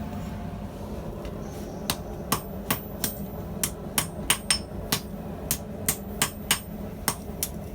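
Blacksmith's hand hammer striking steel tubing on an anvil during forging, a quick run of ringing blows at about two to three a second starting about two seconds in.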